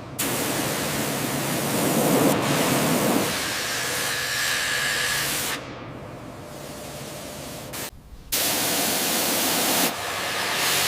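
Steady hiss of a high-pressure spray on metal. It drops quieter about halfway, cuts out briefly about eight seconds in, then comes back at full strength.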